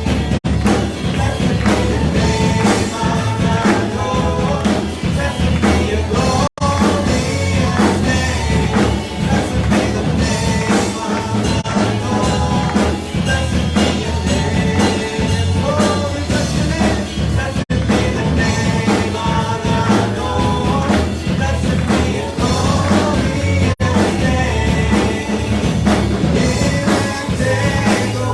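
Rock-style band music with a drum kit and singing, broken by a split-second dropout about every six seconds.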